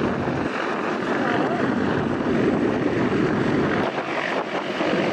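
CH-53 heavy-lift military helicopter flying past, its rotor and turbine engines making a steady, dense noise.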